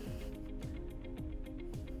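Background music with a steady beat, low notes repeating at an even pace under held tones.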